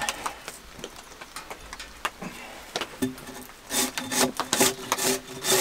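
Wood being worked by hand: scattered knocks on timber, then from about three seconds in a run of quick, rhythmic scraping strokes.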